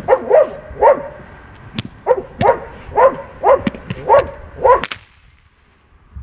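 Dog barking in short calls, each falling in pitch, roughly two a second, during protection bite work on a helper's sleeve. Several sharp cracks fall between the barks, fitting the helper's stick. It all stops about a second before the end.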